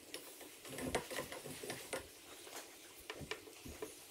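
Faint, scattered clicks and light knocks with soft rustling: hands handling the transducer cable as it is fed through the mounting pole.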